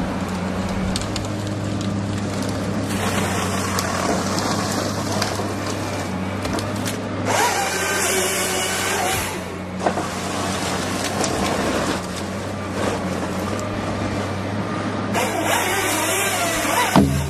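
Diesel engine of a Komatsu PC300LC-8 forestry excavator running steadily under hydraulic load while its processing head works a pine log. Three stretches of harsh rasping noise come from the head feeding and cutting the wood, and there is a sharp knock near the end.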